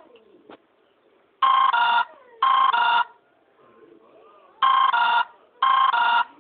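Oppo mobile phone ringtone playing a telephone-style double ring: two short electronic warbling bursts in quick succession, the pair heard twice, about three seconds apart.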